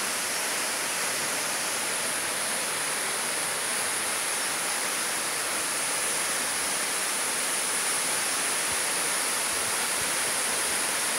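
Tall waterfall falling into a plunge pool: a steady, unbroken rush of water.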